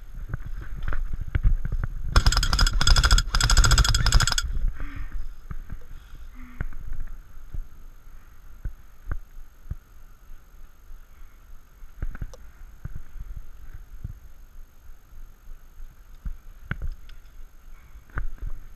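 Airsoft gun firing on full auto: two quick bursts of rapid, evenly spaced shots about two seconds in, followed by scattered faint clicks and knocks.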